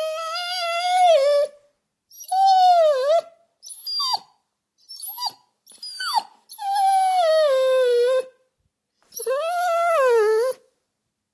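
Dog whimpering: about six high whines with short silences between them, some long and drawn out with a pitch that sags or dips and rises, others short and clipped.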